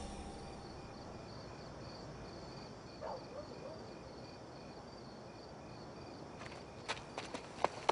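Crickets chirping evenly and faintly in a night ambience. About six and a half seconds in, a few footsteps start up as a sharp series of clicks.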